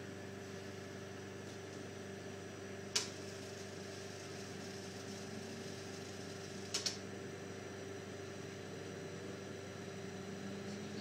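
Steady hum inside a running regional train carriage, with a sharp click about three seconds in and a quick double click near seven seconds. A faint low tone rises near the end.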